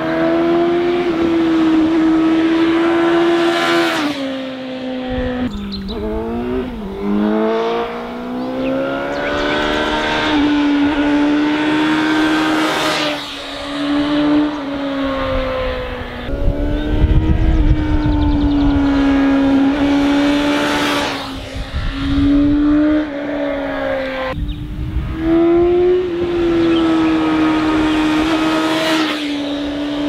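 Suzuki GSX-S750 motorcycle's inline-four engine running hard through a series of bends, its pitch holding steady for several seconds at a time between shifts and throttle changes. There is a quick burst of rising and falling revs about six seconds in.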